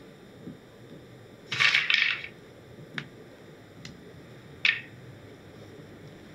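Small hard garnish pieces, whole nuts and fresh cranberries, being handled and set in place by hand: a short clattering rattle about a second and a half in, then three single light clicks.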